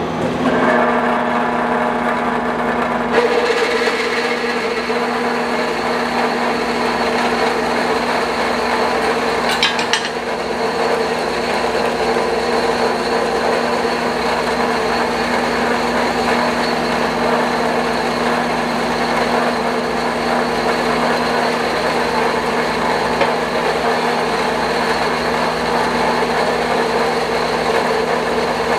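Klutch horizontal metal-cutting band saw starting up and running steadily, its blade cutting down through a stack of metal armor plates clamped in the vise.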